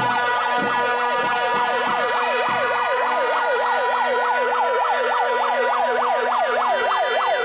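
A siren wailing in a fast up-and-down yelp, about four sweeps a second, over a steady held horn tone. A drum beats a few times in the first couple of seconds.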